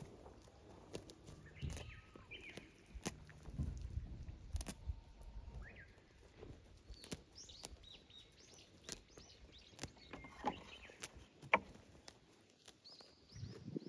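Small birds chirping in short, quick, curving calls, with scattered sharp knocks and clicks between them; one knock about two-thirds of the way through is louder than the rest.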